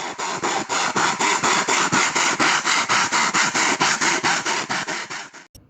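Hand saw cutting wood: quick, even rasping strokes, about five a second, that stop suddenly near the end.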